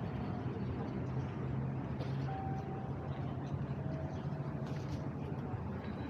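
City street ambience: a steady hum of road traffic with a faint wash of street noise, and a couple of brief faint tones about a third of the way in.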